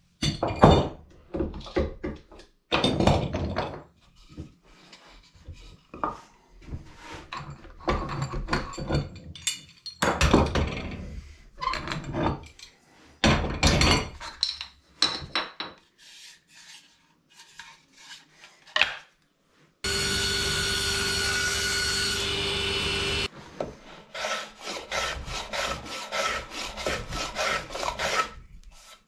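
Hand-tool strokes scraping on rimu wood, irregular at first and settling into a regular run of about two or three strokes a second near the end. About two-thirds through, a steady machine sound with a held tone runs for about three seconds and stops sharply.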